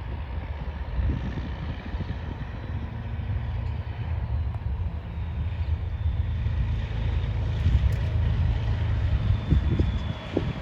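Train rumbling by, with a diesel locomotive's steady low engine drone that settles in a few seconds in. A faint thin high tone, like wheel squeal, comes in during the second half.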